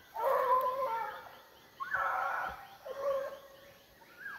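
Hunting hounds baying while trailing a paca: three drawn-out bays, the first the longest and the last the shortest.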